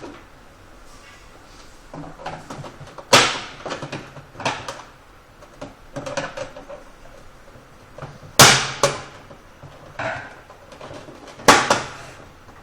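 The clipped-on plastic side cover of an HP Officejet 6500 printer being pried off: a scattered series of sharp plastic clicks and snaps as the clips let go, with quieter handling rattles in between.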